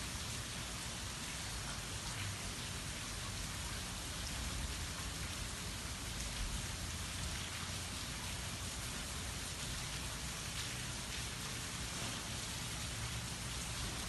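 Light, steady rain falling on trees and grass: an even hiss with no thunder.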